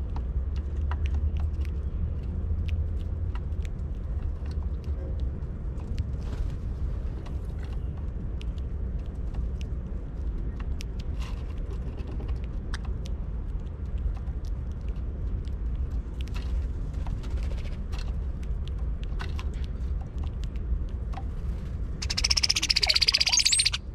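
A cowbird gives one loud burst of high notes ending in a rising whistle, lasting under two seconds near the end. Before it there is a steady low rumble and scattered light clicks as birds pick at seed on the mesh feeder tray.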